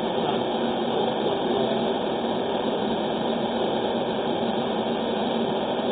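A steady, even rushing noise that does not change, with no distinct knocks, clicks or voices in it.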